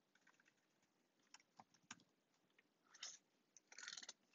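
Faint computer keyboard typing: a few separate keystrokes, then two quick runs of keys near the end as a phone number is entered.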